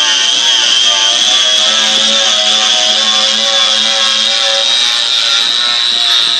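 Harbor Freight angle grinder with a polycarbide paint-removal disc running steadily under load as it strips layers of CARC paint from a truck body: a constant high whine over lower tones that waver as the disc bears on the paint.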